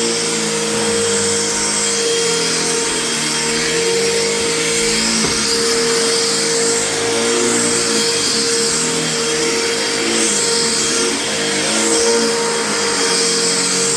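Vacuum cleaner running steadily on carpet: a constant motor whine over the rush of air, with a lower hum that wavers as the machine is pushed back and forth.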